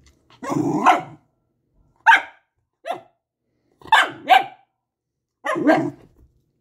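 Wire fox terrier barking about six times in uneven bursts, short sharp barks with longer ones at the start and near the end.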